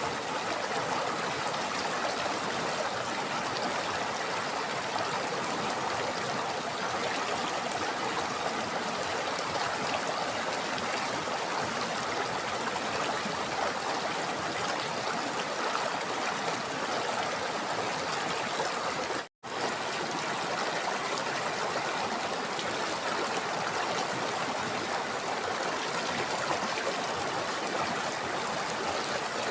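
River water flowing steadily over rocks, an even rushing babble. It cuts out for an instant about two-thirds of the way through, then carries on as before.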